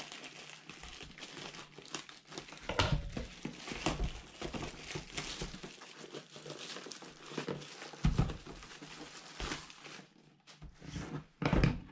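Clear plastic shrink-wrap being torn off a cardboard accessory box and crumpled by hand, crinkling throughout. A few thumps break in, the loudest near the end.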